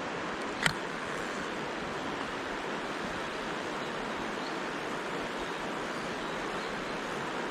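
Mountain stream water rushing steadily, with one sharp click less than a second in.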